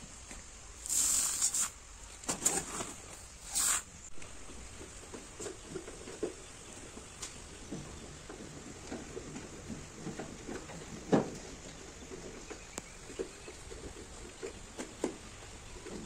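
Sheep and goats eating fodder. A few bursts of rustling come in the first four seconds, then a loose scatter of small crunches and taps as they feed.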